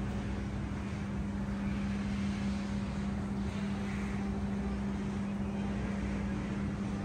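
Steady mechanical hum: a constant low tone over an even rumbling noise, unchanging throughout.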